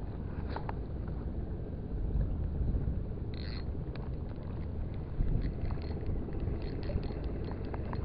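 Steady low rumble, with light clicks and ticks from a spinning reel being handled in the second half.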